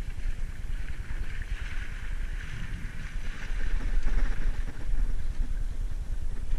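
Wind buffeting the camera microphone as a low rumble, over the hiss of river current, which swells for a few seconds from about a second in.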